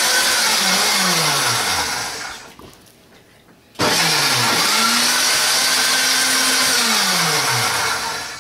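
Ladyship countertop blender motor running: it winds down and stops about two seconds in, then after a short pause starts again with a rising whine, runs steadily for a few seconds and winds down to a stop near the end.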